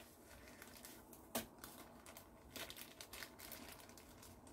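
Faint crinkling and rustling of paper leaflets and plastic packaging being handled and folded, with one sharp click about a second and a half in.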